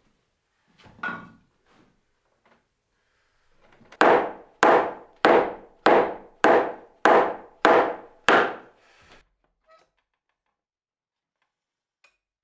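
Eight hammer blows on a heavy softwood timber beam, struck at an even pace about one every 0.6 seconds, each a sharp knock that dies away quickly.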